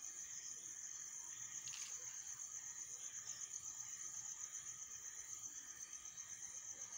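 Crickets chirping in a steady, high-pitched chorus.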